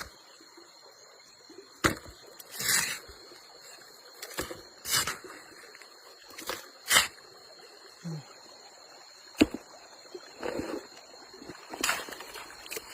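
Water sloshing and splashing in a gold pan during panning for placer gold, in repeated strokes. Each stroke starts with a sharp knock and is followed by a short splash, about every two to three seconds.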